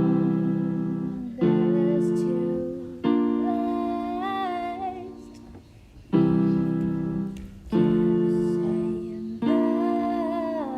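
Piano chords struck one at a time, each left to ring and fade, about every one and a half seconds, with a gap in the middle. A quiet, strained female voice sings held notes over them.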